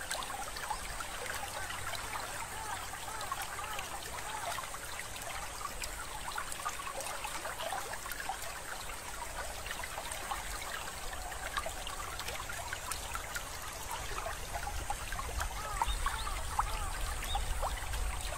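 Water trickling and bubbling steadily, like a small stream, growing a little louder near the end.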